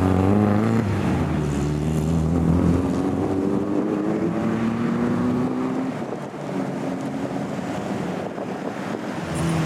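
Car engine pulling steadily under load, its pitch climbing slowly for several seconds before easing off around the middle and picking up again near the end, with wind and road noise.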